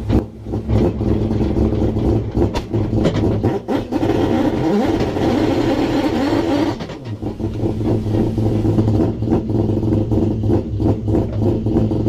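Mazda RX-7 rotary engine running choppily at low revs, then revved up: its pitch climbs about four seconds in and holds high until about seven seconds, then drops back to an uneven, choppy idle.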